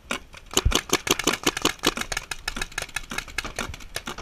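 Paintball markers firing in rapid strings, many sharp cracks a second with brief gaps between runs.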